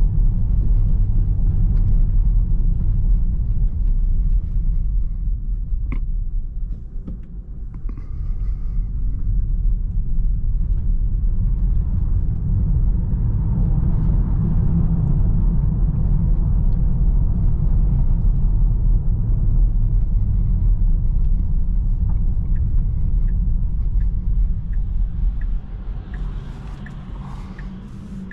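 Tyre and road rumble heard inside the cabin of an electric Tesla Model 3 driving over rough, snow-patched streets, easing briefly twice as the car slows. Near the end the turn-signal indicator ticks about twice a second.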